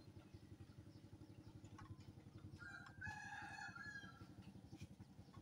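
A rooster crowing once, faintly, for about a second near the middle, over a faint, low, steady throb.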